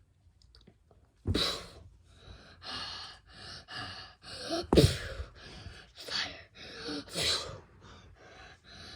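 Breathy vocal sound effects: a string of short hissing, gasp-like bursts about one a second, the loudest near the middle with a falling pitch.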